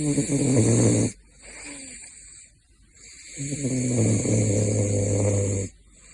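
Caracal snoring in its sleep: two low snores about three seconds apart, the second one longer, with a softer breath between them.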